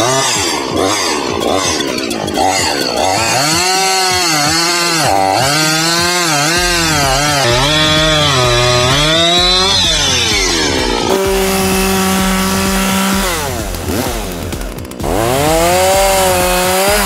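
Two-stroke chainsaw engines cutting through logs, the engine pitch rising and dipping again and again as the chain bites into the wood. About eleven seconds in the engine holds one steady high pitch for a couple of seconds. Near the end it revs up again.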